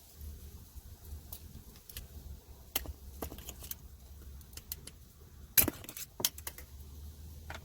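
Small metallic clicks and taps of a tiny screwdriver prying an incandescent bulb out of a car's dome light housing, with a sharper click about five and a half seconds in.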